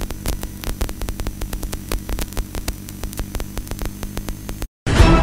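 Steady electrical hum with irregular crackling clicks, several a second, on the broadcast audio feed. Near the end it cuts out abruptly and loud music starts.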